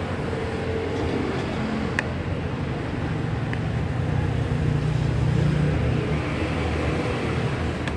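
Steady rumble of road traffic, swelling as a vehicle passes about five seconds in, with a single sharp click about two seconds in.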